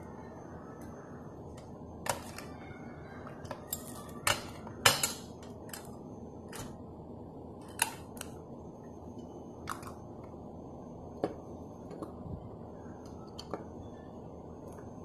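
Scale-model front-loader garbage truck's lift arms and container being worked by hand, giving a dozen or so separate small clicks and clacks, the loudest a double clack about five seconds in, over a steady low hiss.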